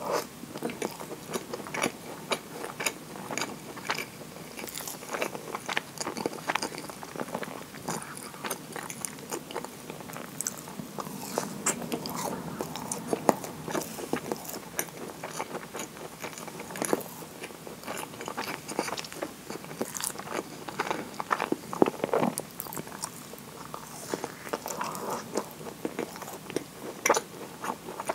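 Close-miked biting and chewing of a moist kinako (roasted soybean flour) scone dipped in maple syrup, with many short mouth clicks.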